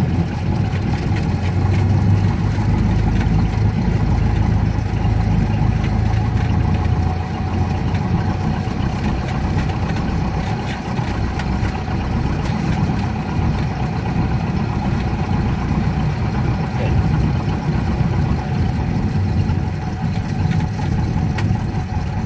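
A light aircraft's engine running at low power, heard inside the cockpit during the landing rollout: a steady drone with a strong low hum that gets a little quieter about seven seconds in.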